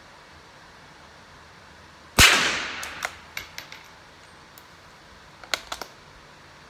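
A single rifle shot from a bolt-action target rifle about two seconds in, its sound ringing away in the echo of an indoor range. A few light metallic clicks follow, and near the end a quick cluster of sharper clicks as the bolt is worked to reload.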